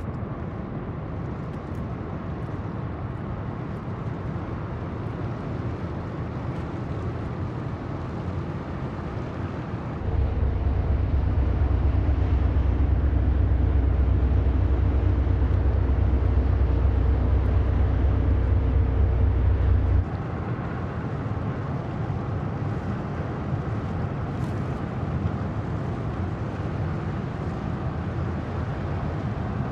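Low rumble of large passenger ferries' engines heard across the water, with a faint steady hum. It jumps louder about a third of the way through and drops back about two thirds of the way through.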